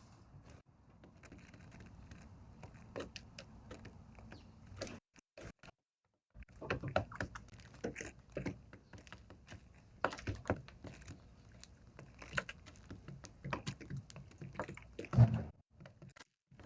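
House sparrows pecking at castella sponge cake and hopping about the feeding spot: irregular light taps and clicks, with one louder thump near the end.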